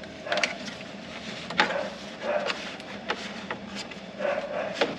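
Hands working on the plastic dash parts and wiring: scattered sharp clicks and light knocks with brief rustling, as the wiring is gathered and routed back through.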